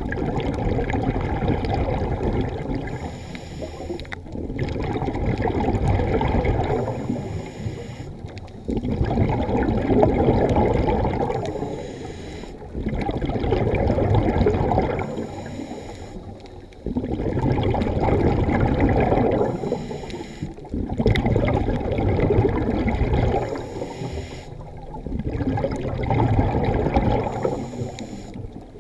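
Scuba diver breathing through a regulator underwater: a brief hissing inhale, then a long bubbling exhale, repeating about every four seconds.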